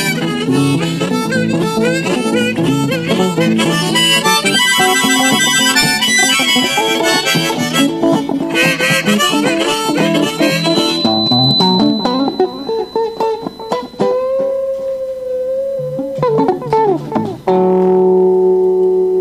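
Harmonica and acoustic guitar playing an instrumental break. The harmonica runs quick notes at first, then holds a wavering note and ends on a long steady one.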